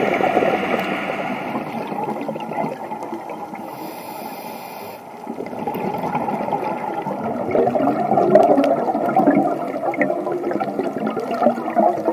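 Underwater recording of a scuba diver's exhaled bubbles gurgling and rushing, in irregular bursts. There is a quieter spell about four seconds in, and then the bubbling swells again.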